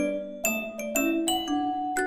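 Background music: a light, bell-like tune of struck mallet-percussion notes, several a second, each ringing briefly.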